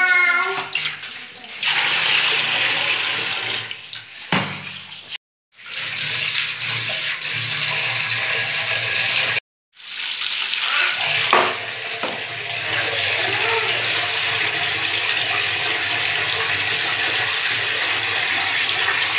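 Running water pouring steadily, with a low steady hum beneath. The sound drops out completely for a moment twice, about five and nine seconds in.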